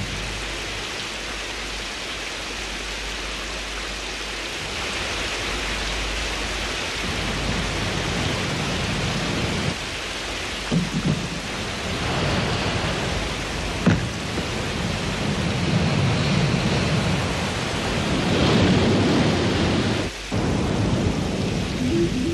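Thunderstorm: steady heavy rain with thunder, sharp cracks about eleven and fourteen seconds in, and a low rumble swelling near the end.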